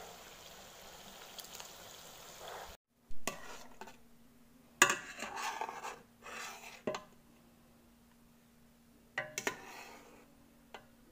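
Sauce simmering in a pan with a steady hiss. After a short break, a metal spatula stirs and scrapes in a stainless steel pot, with several sharp clinks against the pot; the loudest comes about five seconds in. A faint steady hum lies underneath.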